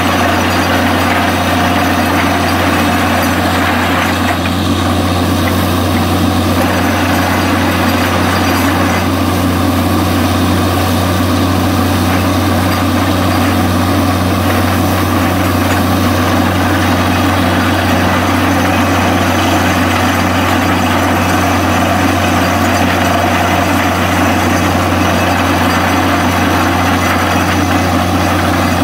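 Heavy engine running steadily at a constant speed, a loud even hum that does not change.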